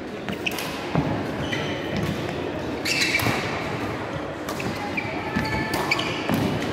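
Badminton rally: a string of sharp racket strikes on the shuttlecock, with brief high shoe squeaks on the court floor between them.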